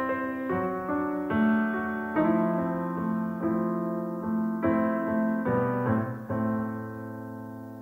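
Slow solo piano music: single notes struck over held chords, growing softer towards the end.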